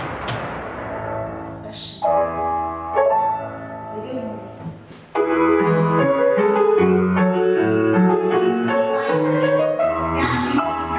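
Instrumental accompaniment music led by piano, playing chords. It fades to a brief lull and comes back in loudly about five seconds in.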